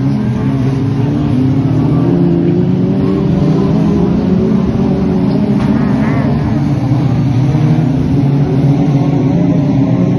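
F2 stock car engine running hard under race load, a steady, loud drone that holds its pitch with only slight rises and falls.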